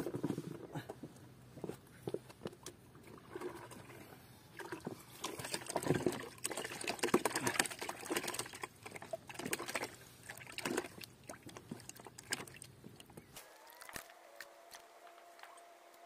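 Water splashing and trickling close by, in irregular small splashes and drips. About thirteen seconds in it thins out and becomes quieter.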